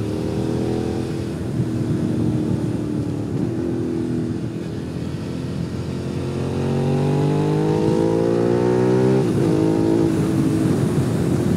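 Suzuki SV650's 645 cc V-twin engine running under way. About halfway through, the revs climb steadily under acceleration, then fall away sharply and settle.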